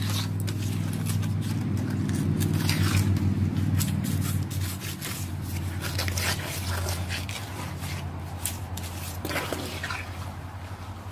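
Gloved hands squishing and swishing a piece of fabric through a tub of wet concrete slurry, with irregular wet squelches, drips and scrapes against the tub, over a steady low hum.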